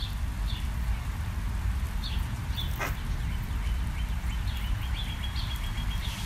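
A steady low background rumble with faint, short high chirps repeating every second or so. A single sharp click comes about three seconds in, as steel pliers close a copper jump ring.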